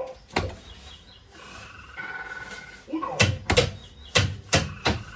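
Dinópolis slot machine playing its electronic game sounds: short steady tones, then a quick run of sharp clicks, about two or three a second, in the second half.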